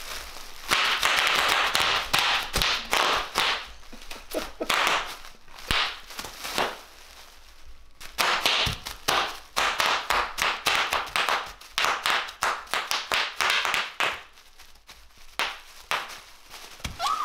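Plastic bubble wrap crinkling and popping under a toddler's bare feet as he steps and stomps on it. Dense runs of sharp pops come with rustling, with a brief lull about halfway through.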